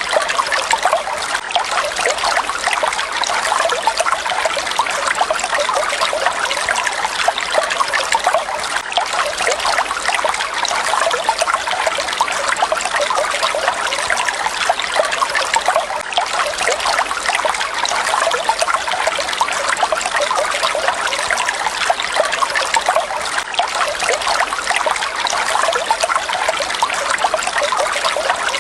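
Water falling and splashing steadily, a constant trickling rush without a deep rumble.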